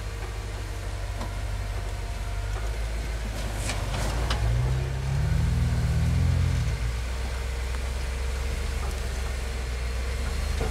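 Hummer H3 engine running at low revs while rock crawling, with a few sharp knocks about four seconds in, then a brief rise in revs that settles back down a couple of seconds later.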